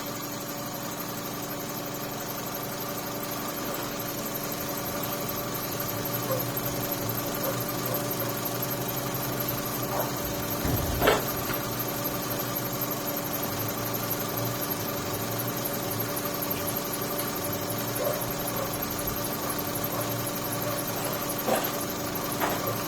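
Holden Cruze engine idling steadily after a thermostat replacement, run to check that it is okay. A short knock comes about eleven seconds in, with a few fainter clicks later.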